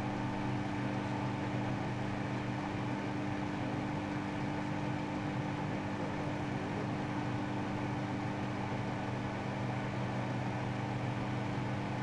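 Microwave oven running: a steady, unchanging hum.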